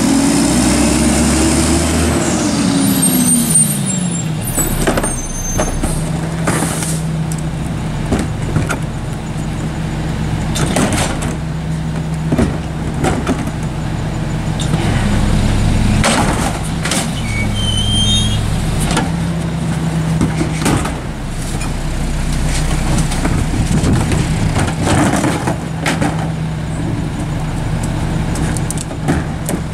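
Mack MR garbage truck's diesel engine revving as the truck pulls away, its pitch rising for about two seconds and then dropping off. The engine then runs steadily while the crew works the McNeilus rear loader, with repeated knocks and bangs of bins against the hopper and an air brake hiss.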